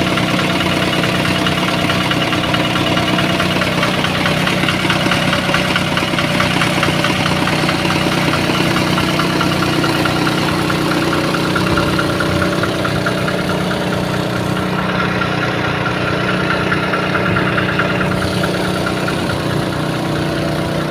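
Engine of a well-drilling machine running steadily at a constant speed.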